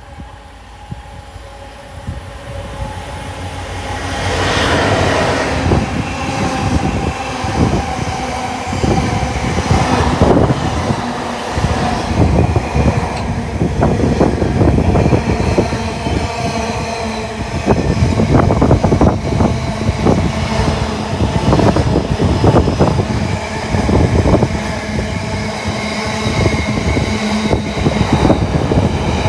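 A train passing close by: it approaches about two seconds in and is loud from about four seconds on, with a long run of wheel clatter over the rail joints.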